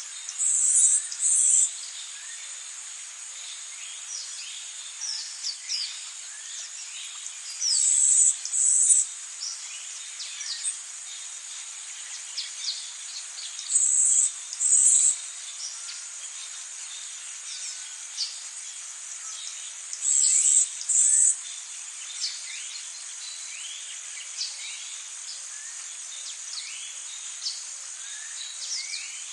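A steady, high-pitched chorus of insects, with many short bird chirps scattered through it. A louder insect buzz comes in pairs about every six seconds.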